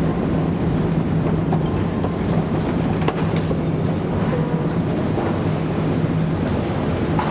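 Steady low hum and rumble of a metro station's underground passage, with a few faint clicks over it.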